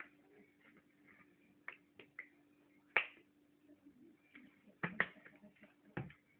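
Scattered sharp clicks and taps of a spoon against a bowl while stirring a salt, spice and oil paste, about seven in all at uneven intervals, over a faint steady hum.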